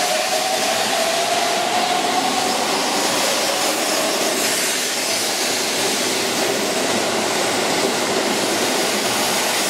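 Keihan 7200-series electric train (set 7201) running out of service past a station platform: steady wheel-on-rail rumble and rush of noise, with a whine that rises in pitch over the first few seconds.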